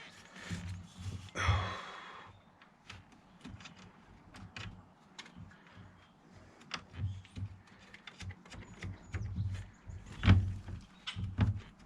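Small metal clicks and clinks of bolts and hand tools being handled while a bolt is started into the ATV's drive-shaft mounting, with a scraping rasp about a second and a half in and a few louder knocks near the end.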